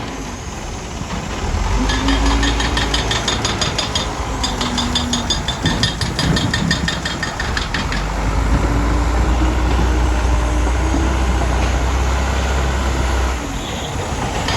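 Diesel engine of heavy earthmoving machinery running under varying load, a steady low rumble with its pitch rising and falling, with a rapid metallic clatter over it in the first half. The level drops about a second before the end.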